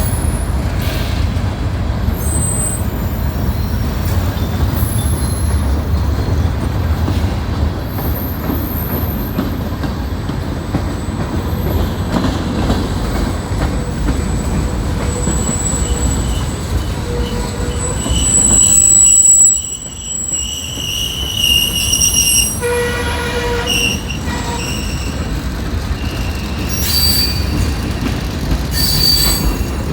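Train rolling by with a steady low rumble and thin, high-pitched wheel squeal. It swells louder about two-thirds of the way through and then drops off suddenly.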